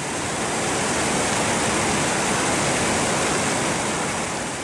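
Waterfall cascading over rock: a steady rush of falling water that swells in at the start and fades out gradually near the end.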